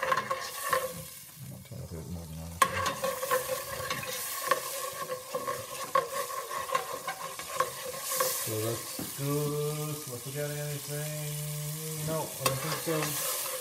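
Beef stock and chopped garlic sizzling in a hot stainless steel pot while a metal spoon stirs and scrapes the bottom to deglaze it, with repeated clicks of metal on the pot. A low steady hum joins in for a few seconds in the second half.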